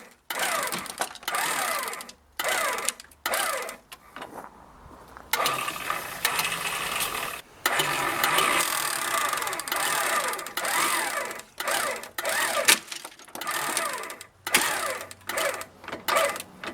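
Handheld power tool run in repeated stop-start bursts of up to a few seconds each, its pitch sliding up and down as it loads.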